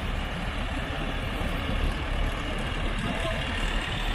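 Heavy diesel truck engine running steadily as a tandem-axle crane truck rolls slowly past at low speed.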